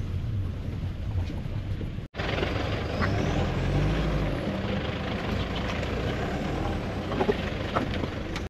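SUV driving over a rough, rocky dirt track, heard from inside the cabin: a steady rumble of engine and tyres with a few knocks and rattles from the bumpy ground. The sound cuts out for an instant about two seconds in.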